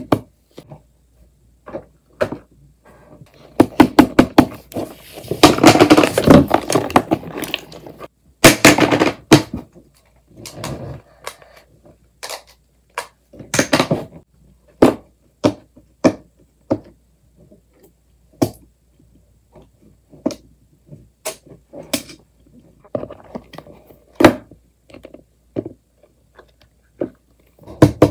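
Fidget toys being handled and set down on a wooden tabletop: irregular sharp clicks and knocks, with denser runs of rapid clicking about four and eight seconds in.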